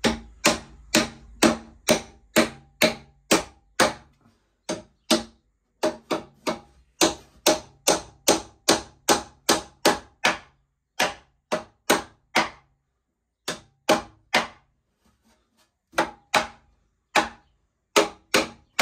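Claw hammer driving nails into a wooden upright: sharp repeated blows, about two a second, in several runs with short pauses between them.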